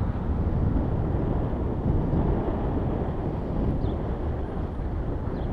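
Steady low rumble of a vehicle driving slowly, engine and tyre noise heard from on board the vehicle itself.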